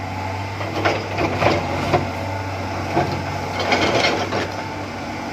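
A steady low machine hum with irregular knocks and crunches over it.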